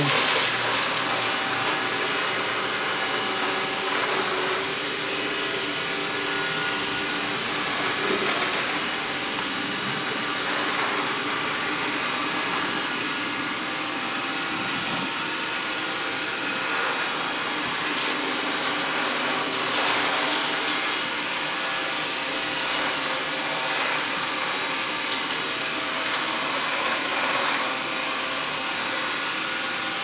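Xiaomi Mi robot vacuum running steadily on a hard laminate floor, a continuous whirr of its suction and brushes as it cleans. A single brief click sounds about three-quarters of the way through.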